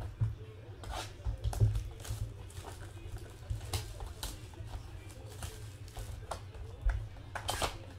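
A 2017 Panini Elite football hobby box being handled and opened: scattered cardboard scrapes, taps and rustles, the sharpest about a second and a half in, over a steady low hum.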